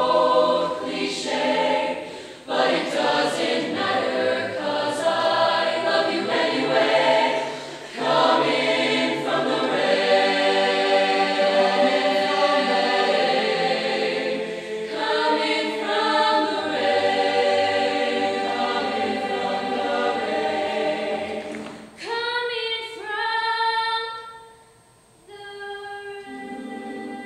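High school choir singing a slow ballad in several voice parts. About three-quarters of the way in, the full sound thins to a few softer held notes.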